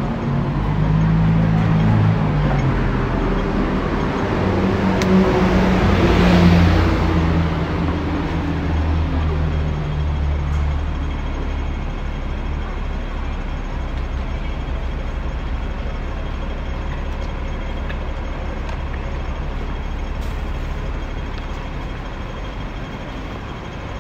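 A motor vehicle passing close by on a city street: its engine and tyre noise swell to a peak about six seconds in and fade, leaving a steady low traffic rumble.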